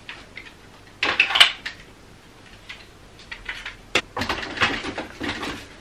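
Plastic pushchair adapters and a bassinet being fitted onto a pushchair frame. A rustling clatter comes about a second in, a sharp click at about four seconds, then a run of small knocks and rustles as the bassinet is seated.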